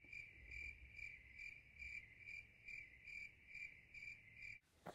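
Cricket chirping: a high, steady trill that swells about twice a second. It starts suddenly and is cut off by a click near the end.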